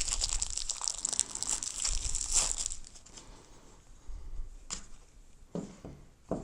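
Plastic packaging crinkling as it is handled and pulled open, busy for about the first three seconds, then quieter with a few light knocks near the end.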